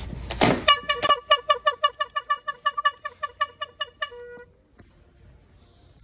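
Handheld air horn blown in rapid short blasts, about six a second for some three seconds, ending in a brief held note. It follows a sudden loud burst about half a second in.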